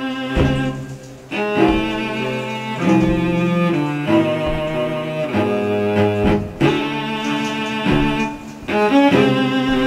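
Background score music of low bowed strings, cello and double bass, playing held notes in phrases, with short breaks about a second in and twice more later.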